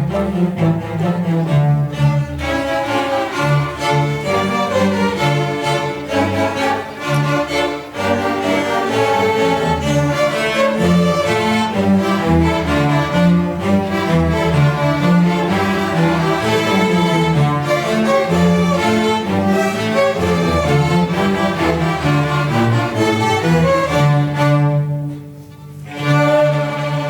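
Student string orchestra playing, with a brief pause near the end before the music resumes.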